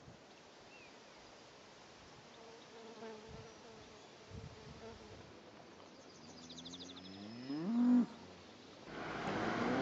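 A cow on the riverbank mooing: one long call that rises in pitch and is loudest as it ends, about eight seconds in. Just before it there is a short run of high, rapid chirping, and near the end a steady rushing noise comes in.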